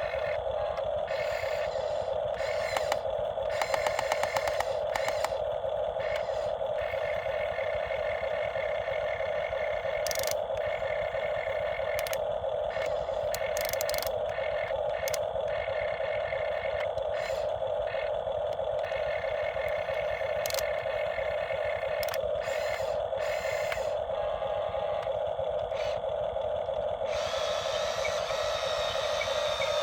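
Excavator whining steadily, with a single even tone and scattered light clicks and rattles over it.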